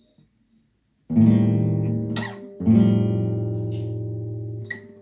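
Guitar chords strummed and left to ring. The first comes about a second in and a second follows about a second and a half later, each fading slowly. Brief squeaks sound between and after them.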